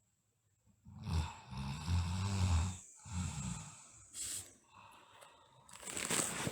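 A sleeping girl snoring. A long, rough, pulsing snore starts about a second in and breaks off briefly before a shorter one. Two airy, hissing breaths follow, the second near the end.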